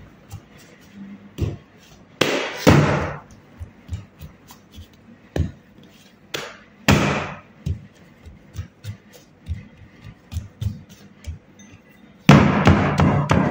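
Soft slaps, thuds and light knocks of a round of bread dough being patted, flipped and slapped down on a wooden table, with two louder, longer slaps about two seconds in and again after six seconds. A louder sustained sound comes in near the end.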